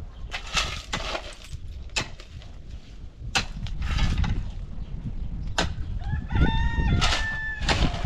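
Metal shovel blades striking and scraping stony ground in a string of sharp knocks. A rooster crows once, a long held call, about six seconds in.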